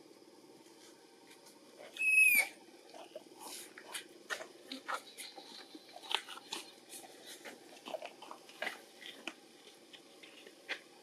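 A baby long-tailed macaque's single high squeal, about half a second long and dipping at the end, about two seconds in. Scattered soft clicks and smacks follow.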